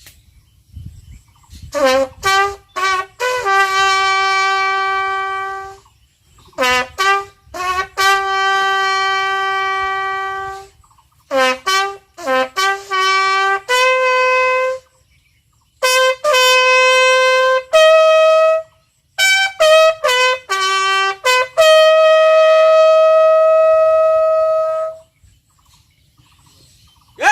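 Solo bugle sounding a slow military funeral call after the gun salute: five phrases of quick short notes, each ending in a long held note, with brief pauses between them.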